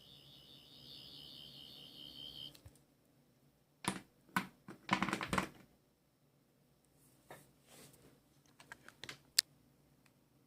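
A high, wavering electronic tone cuts off sharply about two and a half seconds in. It is followed by a string of sharp clicks and knocks as an aluminium sonic screwdriver prop is handled.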